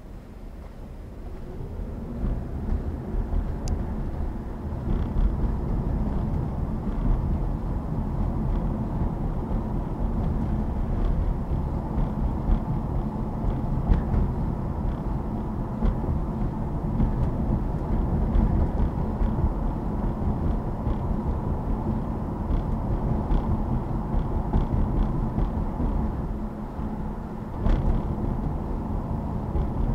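Car driving on the road: steady low road and engine noise that grows louder over the first few seconds and then holds, with faint scattered ticks. Near the end the noise dips briefly, then there is a sharp knock.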